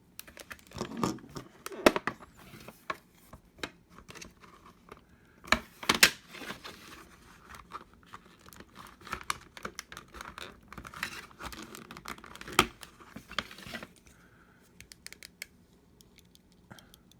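Retail packaging being torn and crinkled open by hand: an irregular run of crackles, rips and scrapes, thinning out to a few light clicks about fourteen seconds in.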